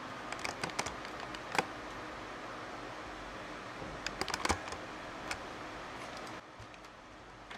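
Light clicks and knocks of a Sony NX5 camcorder being handled and set down on a workbench, over a steady background hiss. The sharpest knock comes about a second and a half in, and a quick cluster of clicks about four and a half seconds in.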